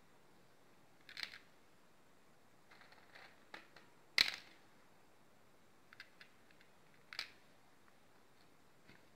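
Small plastic fuse beads clicking as they are handled and set onto the pegs of a plastic pegboard: a few scattered light clicks, the loudest about four seconds in.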